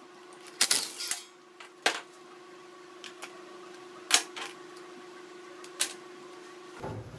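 Sharp metallic clinks and clatters of steel bolts and hand tools on a steel workbench, about five separate knocks spread irregularly, over a faint steady hum.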